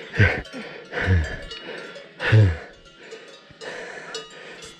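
Cowbells ringing, with three short low calls that fall in pitch, the third the loudest.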